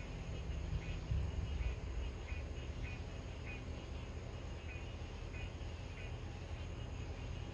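Distant thunder rumbles low and swells about a second in, then carries on as a steady rumble. Over it an animal gives short high chirps, repeating about every half second.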